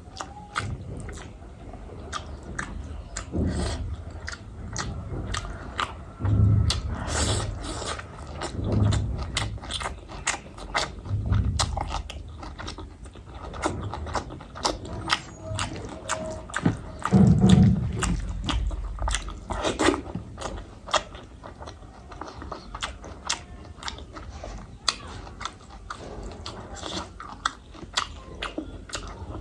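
Close-miked chewing of a meal of rice and boiled eggs, with frequent wet mouth clicks and smacks throughout and a few louder, deeper mouthfuls.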